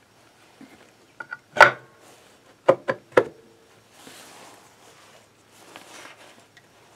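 Aluminium engine side cover of a Yamaha YBR 125 clacking and knocking against the crankcase as it is fitted by hand. One loud clack comes about a second and a half in, with lighter clicks just before it, then three quick sharp knocks about a second later. Softer rubbing and handling noise follows.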